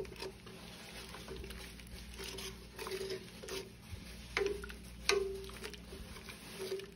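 Wooden spoon stirring a stainless steel pot of thick split pea and barley soup: soft irregular sloshing with a few light knocks of the spoon against the pot, the two sharpest about four and five seconds in.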